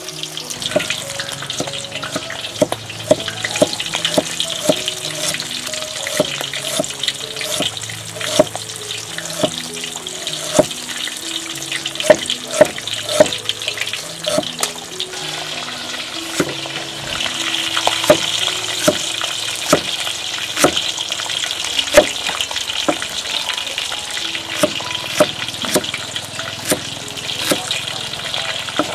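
A heavy cleaver slicing ginger and shallots on a wooden chopping board: irregular sharp knocks of the blade on the wood, about one or two a second, over soft background music and a steady hiss.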